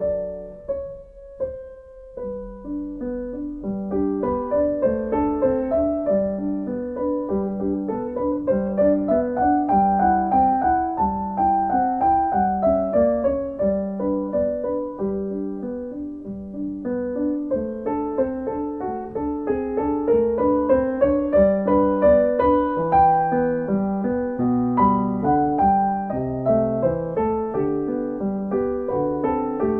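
Background piano music: a flowing piece with a low accompaniment figure repeating about once a second and a melody rising and falling above it.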